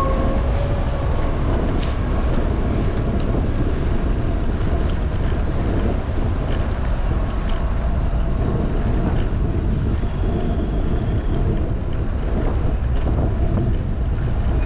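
Wind buffeting the microphone of a camera on a moving bicycle: a loud, steady, unevenly flickering low rumble, with a few faint clicks scattered through it.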